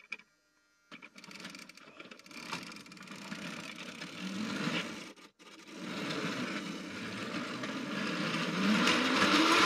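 Battery-powered Plarail toy train's motor and gears whirring as it hauls up a steep plastic spiral mountain track, with the plastic wheels and cars rattling on the track. It grows louder toward the end, with a brief break about halfway.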